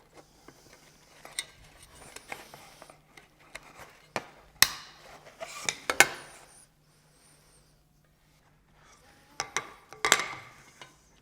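Light clicks, knocks and scraping of the roller blind's metal and plastic parts being handled as the corner bracket is slid into the cassette extrusion, with the sharpest knocks around four to six seconds in and again near the end.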